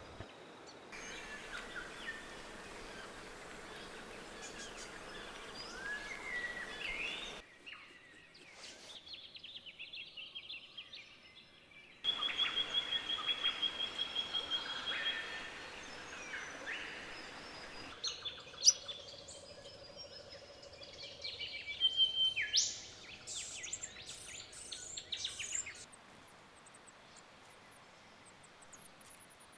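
Wild birds calling against a quiet forest background, heard as a series of short separate recordings. The calls include short rising whistles and, about twelve seconds in, a rapid high trill lasting a few seconds.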